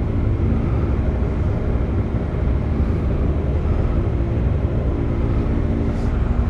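A motorcycle engine idling steadily, with a low rumble and an even, unchanging note.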